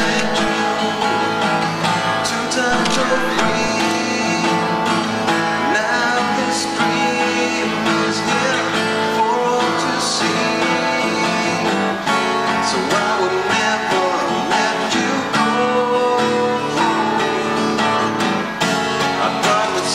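Steel-string acoustic guitar strummed and picked steadily, with a man singing over it.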